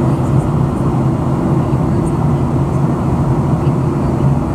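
Steady cabin noise inside a Boeing 737-800 in flight: the CFM56-7B engines and the airflow past the fuselage make a constant low rumble.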